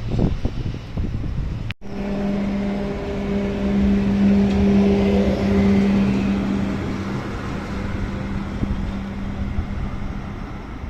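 Charleroi light-rail tram moving off from a platform: a steady electric motor hum with a fainter higher tone above it, swelling and then fading as it draws away. Before it, about two seconds of irregular low rumble and knocks that cut off abruptly.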